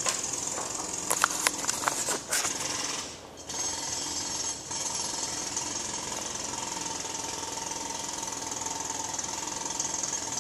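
Jackhammer breaking up road pavement up the street, running steadily. There are a few sharp clicks in the first couple of seconds and a brief break about three seconds in.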